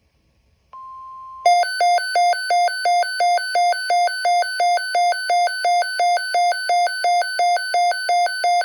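Emergency alert attention signal. A short steady beep comes about a second in, then a loud electronic tone that switches back and forth between a low and a high pitch about three times a second.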